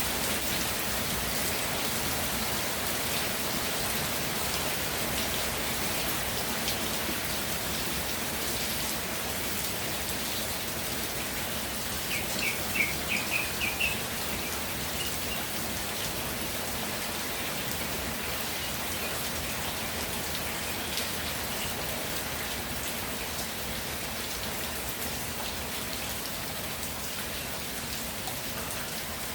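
Steady rainfall with scattered drops ticking on surfaces. About halfway through, a bird gives a quick run of about six high chirps.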